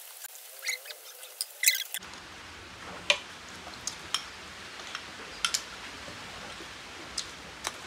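Close-miked eating sounds of two people eating macaroni: scattered sharp clicks and wet mouth smacks from chewing, with plastic spoons scooping, loudest a little under two seconds in and again about three seconds in.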